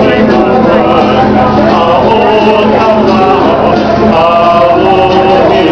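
A group of men singing together loudly, with a ukulele strummed along.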